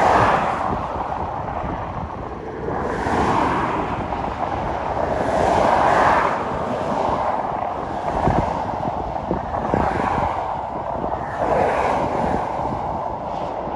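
Wind rushing over the microphone with tyre and road noise from a car moving at highway speed, swelling and easing every two to three seconds.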